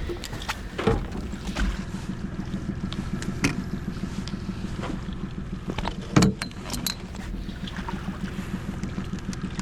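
A boat's motor running steadily with a low, fast-pulsing hum, with a few sharp knocks; the loudest comes about six seconds in.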